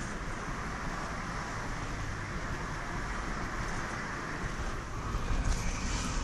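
Steady road and engine noise inside a car's cabin as it drives, an even rushing with a low rumble, growing a little louder about five seconds in.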